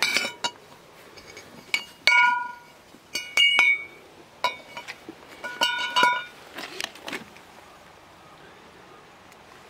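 Metal turbo intake horns, a new welded aftermarket one and the stock LB7 Duramax one, knocking against each other as they are handled: several sharp clinks, each ringing briefly with a metallic tone.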